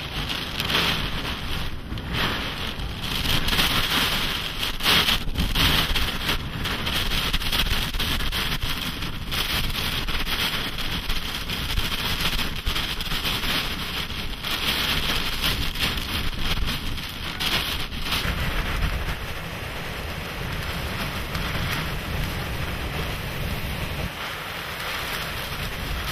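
Hurricane-force wind and heavy driving rain battering the microphone: a dense, steady rush of noise that swells with the gusts, loudest a few seconds in and easing somewhat near the end.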